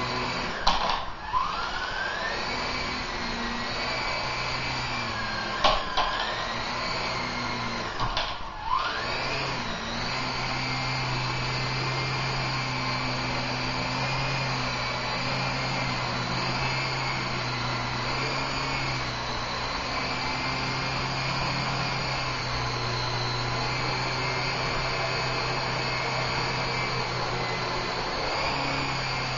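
Blade CX2 coaxial electric RC helicopter's motors whining and rotors whirring steadily. Three sharp knocks come in the first few seconds as it bumps against the floor or furniture, the motor whine dropping and climbing back up after each, then it runs evenly for the rest.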